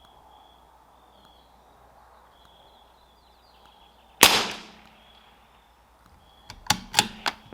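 A single shot from a CZ 457 AT-ONE .22 LR bolt-action rifle about four seconds in, with a short fading echo. Near the end come several quick metallic clicks of the bolt being worked to chamber the next round.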